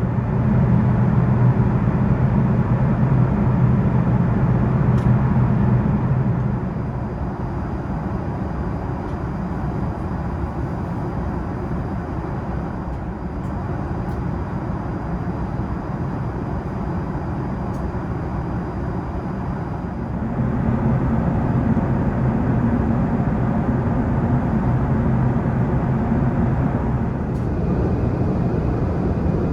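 Steady jet-airliner cabin noise: a continuous drone of engines and airflow with a low hum. The hum is louder for the first six seconds, eases off, then swells again for several seconds about two-thirds of the way through.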